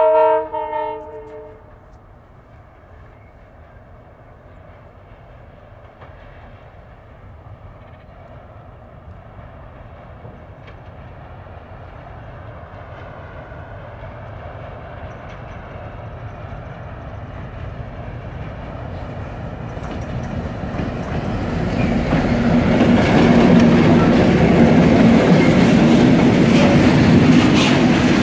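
EMD-built class 661 diesel-electric locomotive with a two-stroke V16 engine: two short horn blasts, then the engine running louder and louder as the train approaches. From about twenty-two seconds in it passes close with a steady engine drone, and the tank wagons behind it clatter over the rail joints.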